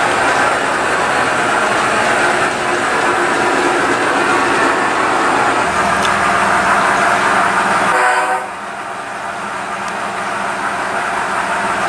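G-scale model train rolling along elevated shelf track, its wheels clattering steadily over the rails; the sound drops off sharply about eight seconds in.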